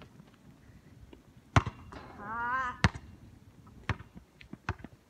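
Basketball bouncing on an outdoor court: two loud bounces about a second and a quarter apart, followed by a few lighter ones. Between the two loud bounces a short wavering vocal sound rises and falls.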